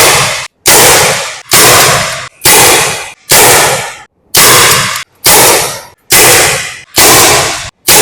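SIG Sauer MPX Gen 2 pellet rifle firing shot after shot at a steady pace, about one a second, roughly nine shots. Each is a sharp crack with a short fading tail.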